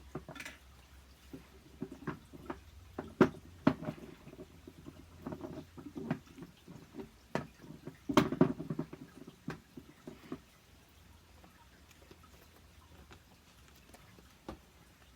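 Small plastic and silicone fidget toys being handled and set down: scattered clicks, taps and rustles, busiest for about the first ten seconds, then only an odd click.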